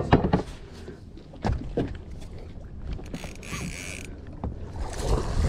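Knocks and bumps of handling in a small fibreglass boat during a fight with a large snook on a spinning rod. About three seconds in comes a buzz of about a second from the spinning reel as line slips off its eased drag.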